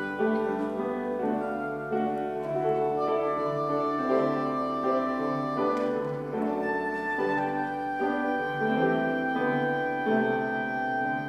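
Slow instrumental music: piano with sustained melody notes above it, one held chord after another.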